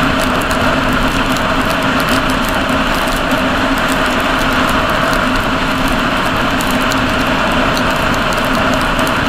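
Motorcycle cruising at a steady motorway speed on a wet road: a constant engine drone mixed with wind and tyre noise, with faint scattered ticks.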